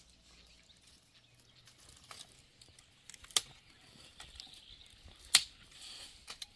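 Two sharp clicks about two seconds apart, with a few fainter ticks between, over a faint background.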